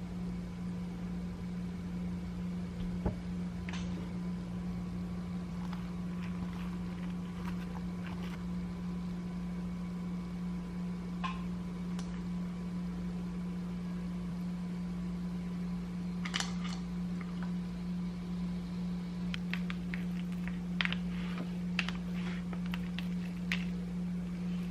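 Steady low mechanical hum with scattered light clicks and knocks, most of them in a quick cluster near the end.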